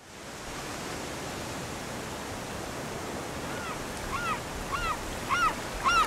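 Steady wash of ocean surf, fading in at the start. From a little past halfway a bird calls over it five times, each call a short rising-and-falling whistle about 0.6 s apart, growing louder.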